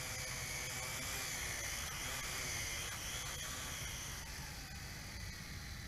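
JXD 506G quadcopter's motors and propellers whirring faintly as it descends slowly to land, with a thin high whine that shifts in pitch, fading toward the end as the throttle comes down.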